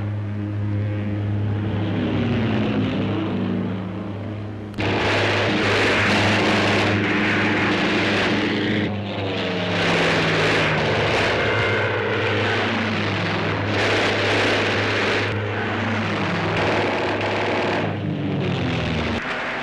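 Steady drone of propeller-driven aircraft engines overhead, with slowly falling whines. From about five seconds in, it is broken by several loud bursts of rushing noise, each a second or two long. The drone stops just before the end.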